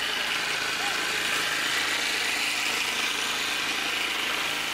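Outboard motor of a small boat running steadily while under way, its drone mixed with rushing wind and water noise.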